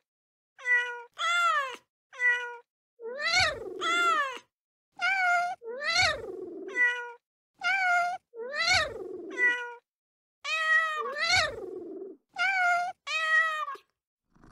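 A kitten meowing over and over, about fifteen meows: some short and level, others longer, rising and then falling in pitch, with complete silence between them.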